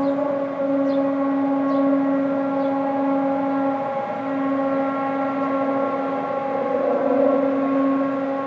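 Unexplained low, steady horn-like drone with many overtones, said to be coming from the hills, holding one pitch with a short break about four seconds in.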